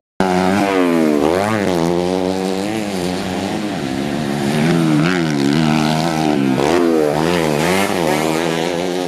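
Several small dirt bike race engines revving hard. Their pitch rises and falls over and over as the riders open and close the throttle and shift, with the sounds of more than one bike overlapping.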